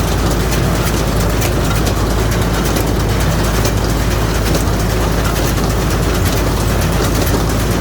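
Straw baler at work: engine running steadily, with the baling mechanism making a fast, even rattle.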